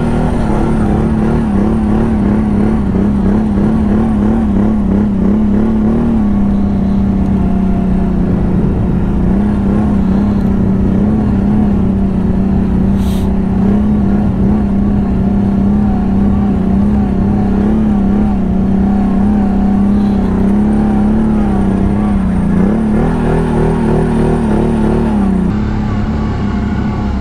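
ATV engine running steadily under load, holding a fairly constant pitch that dips slightly about six seconds in and climbs again near the end.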